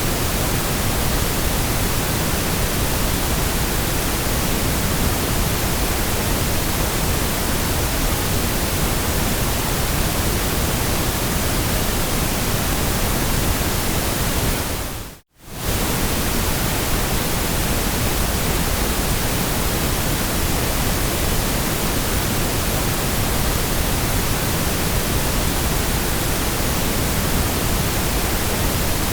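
Steady, even hiss of generated white noise, dropping out for a moment about halfway through and fading straight back in.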